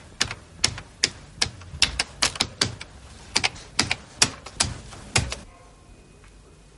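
Keystrokes on a computer keyboard: about fifteen sharp, irregular clacks as a line is typed, stopping about five and a half seconds in.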